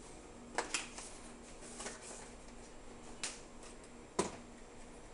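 A few light clicks and knocks from kitchen handling around a stainless steel saucepan, the loudest about four seconds in, over a faint steady hum.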